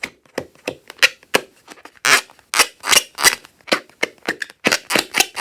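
Slime being squeezed and worked by hand, popping and snapping in a quick irregular run of sharp clicks, roughly three a second.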